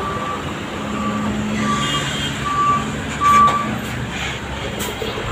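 A vehicle's reversing alarm beeping at an even pace, about five beeps in three and a half seconds with the last the loudest, over the low running of large vehicle engines.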